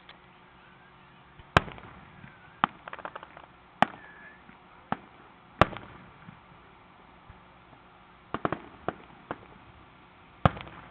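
Aerial firework shells bursting in a string of sharp bangs about every one to two seconds, some followed by a quick run of smaller pops. The loudest bangs come just after the start, near the middle and near the end.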